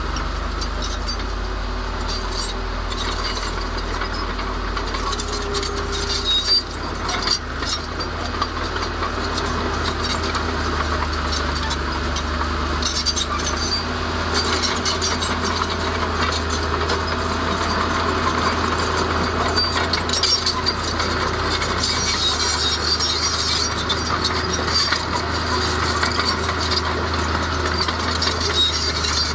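Crawler bulldozer's diesel engine running under load, its steel tracks rattling and squealing, with stones clinking and a few sharper knocks about seven seconds in.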